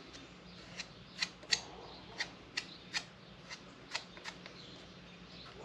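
Light, irregular clicks and crackles, about nine of them, from a thin clear plastic bottle top being flexed and handled while epoxy is spread over its outside.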